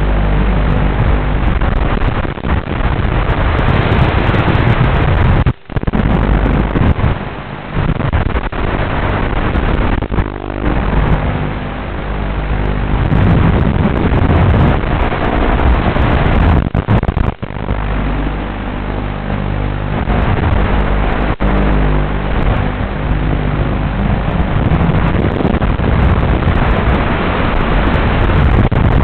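FPV quadcopter's electric motors and propellers, heard close up, their pitch rising and falling with throttle over a rushing wind noise. The sound cuts out sharply twice for a moment, about five and a half and seventeen seconds in.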